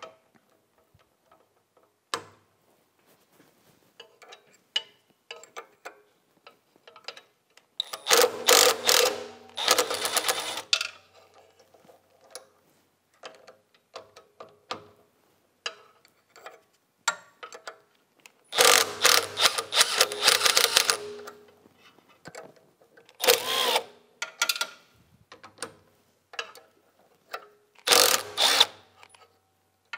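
Cordless Milwaukee impact wrench with a 7/16-inch socket hammering loose the screws that hold a mower blade sharpener's bearing hub. It runs in four bursts: two of two to three seconds, then two shorter ones. Small clicks of handling and tool contact come between the bursts.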